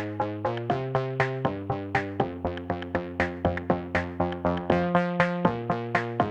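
Background electronic music: a synthesizer melody of quick plucked notes, about four or five a second, over held bass notes that change every second or so.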